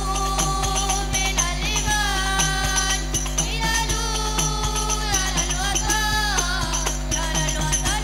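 Hadroh music: a sholawat sung into microphones over rebana frame drums beaten in a steady rhythm, with the jingles of a tambourine-type drum rattling throughout.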